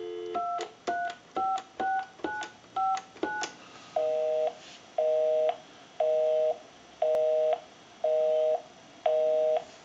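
Dial tone cut short by seven quick touch-tone (DTMF) digits dialed on a Mickey Mouse telephone, followed by a busy signal: a two-note tone pulsing on and off about once a second, because the called line is busy.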